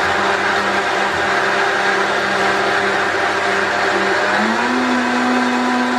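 Vitamix Professional Series 500 blender running loudly, its motor whining steadily as the blade churns a half-full container of warm water. About four and a half seconds in, the motor's pitch steps up as the speed dial is turned higher.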